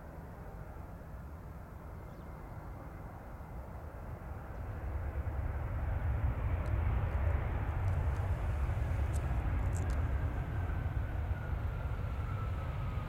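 Airbus A350-941's Rolls-Royce Trent XWB turbofan engines rumbling as the airliner rolls along the runway just after touchdown, growing louder about five seconds in, with an engine whine that slides down in pitch as it passes.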